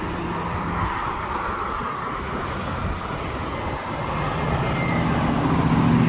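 Road traffic: a motor vehicle going by, a steady engine hum coming in about four seconds in and getting louder toward the end over a background of tyre and road noise.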